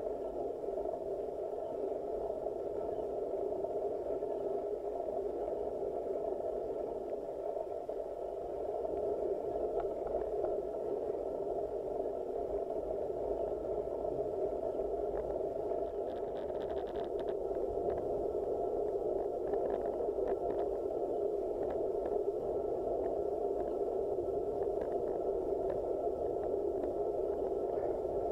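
Steady, muffled noise from a bicycle-mounted action camera on a slow climb, with a faint steady whine and a few faint scattered clicks.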